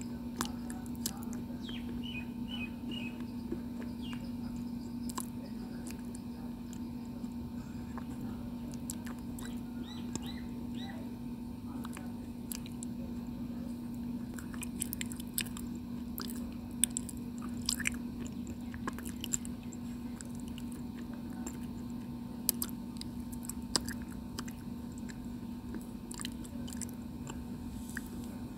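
Mouth chewing a mouthful of crushed, chalky white stone, with scattered crisp crunches and small wet clicks of the grit between the teeth, over a steady low hum.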